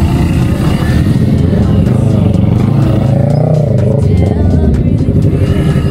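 Motorcycle engine running at low riding speed, with music playing loudly over it.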